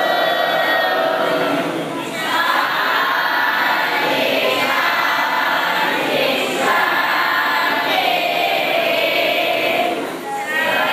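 A group of voices singing together in long phrases of a couple of seconds each, with brief breaks between phrases.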